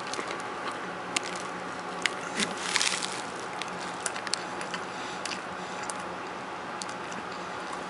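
A person chewing a mouthful of toasted sub sandwich, with scattered sharp crunches and mouth clicks; a denser burst of crunching comes a little under three seconds in.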